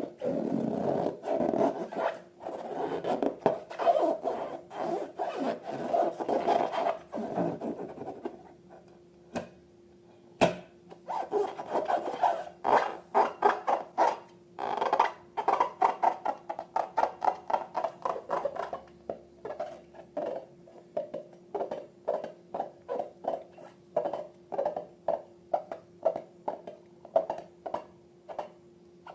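Slime being worked by hand. It rubs and squishes continuously for about eight seconds; then, after a single sharp click, it comes in short, repeated squishes, about two to three a second.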